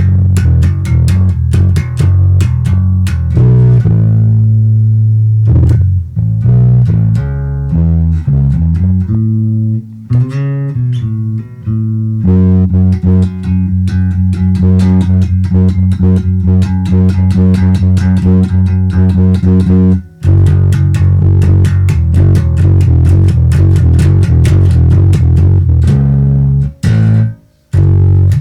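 Electric bass guitar played through a Sound City amp head, a Captor X and a PA with Schroeder 12PL speakers, reverb off: a run of low plucked notes, a slide in pitch about ten seconds in, then one long held note for about eight seconds before more notes.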